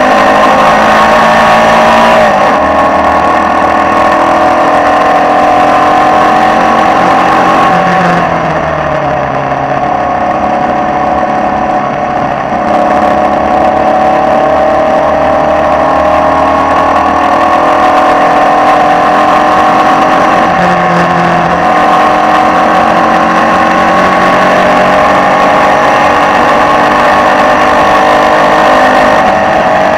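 Onboard sound of a Formula Vee racing car's air-cooled Volkswagen flat-four engine running hard at speed. The revs drop about two seconds in, fall away around eight seconds in with the sound a little quieter for a few seconds, then climb steadily again.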